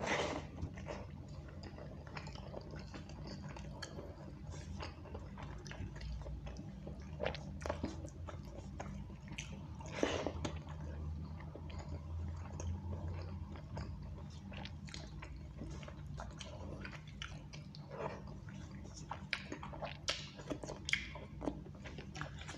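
Close-up mouth sounds of a man chewing hand-fed rice and egg masala curry, with frequent short wet smacks and clicks. Fingers gather the last of the rice from a steel plate.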